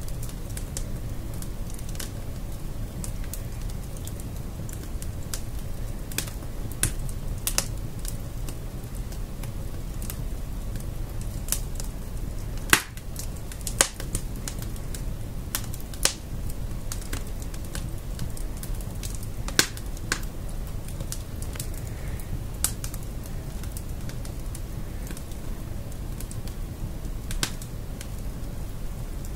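Logs burning in a fireplace, crackling with irregular sharp pops over a steady low rumble, a few louder pops near the middle.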